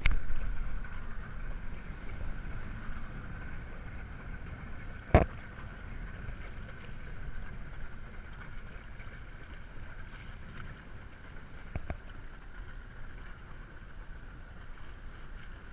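Wind rumbling on the microphone over choppy water around a small boat, with a faint steady high whine under it. A sharp knock about five seconds in, the loudest sound, and a smaller one near twelve seconds.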